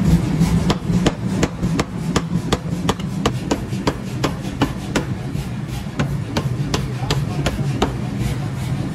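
Forging power hammer running: a steady low machine hum with light, sharp strikes repeating about three times a second.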